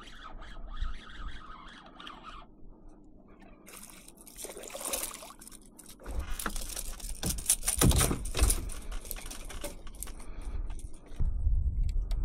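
Water splashing and handling noise as a small snook is landed on a kayak. Dense knocks and rustles from about six seconds in are loudest between seven and nine seconds.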